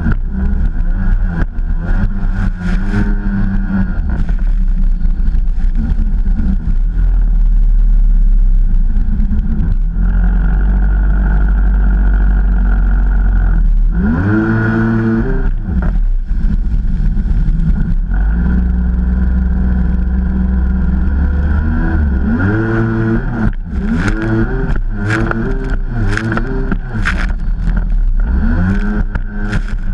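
Stand-up jet ski's engine running at speed. Its pitch drops and climbs back as the throttle is eased and reopened, once around the middle and several times in quick succession near the end, with short splashes of water over the wind noise.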